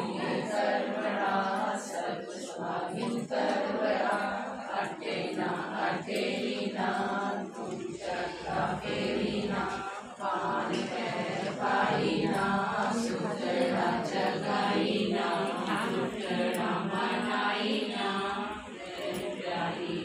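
Group of women singing a Karva Chauth puja song together in chorus.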